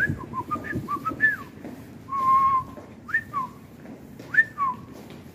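A person whistling a tune: short notes that slide up and fall away, with one held note about two seconds in, over a low background rumble.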